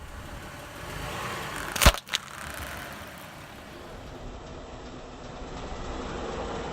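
A car's tyre rolling over and crushing an object, with one loud sharp crack about two seconds in and a smaller crack just after, over the steady noise of the slowly moving car.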